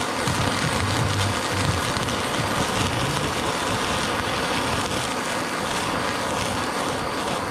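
Handheld kitchen torch burning with a steady hiss as its blue flame sears a slice of chashu pork.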